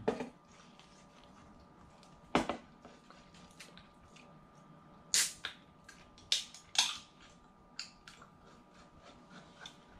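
Someone eating fish at close range: a scattering of sharp smacks and clicks at uneven intervals, the loudest about two and a half seconds in and several between five and seven seconds in.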